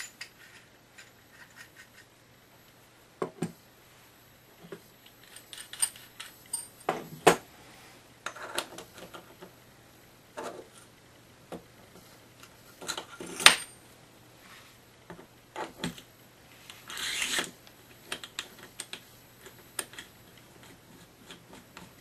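Irregular metallic clicks, taps and scrapes of brass radiator valve fittings being handled and fitted onto copper pipe. The sharpest click comes a little past halfway, and a longer rasping scrape follows later.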